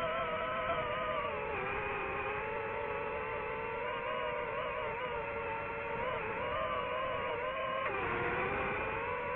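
DJI FPV drone's motors and propellers whining steadily, the pitch wavering up and down as the throttle changes, with a brief dip near the end.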